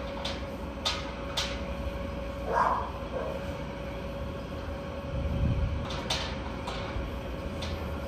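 Calf-barn background: a steady mechanical hum with one fixed tone and a low rumble, broken by a few sharp metallic clicks and knocks, plus a short higher-pitched sound about two and a half seconds in.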